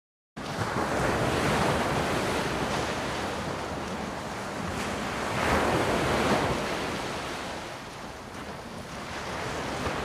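Ocean surf washing onto a beach, a steady rush that swells about five to six seconds in and then eases, after a moment of dead silence at the start.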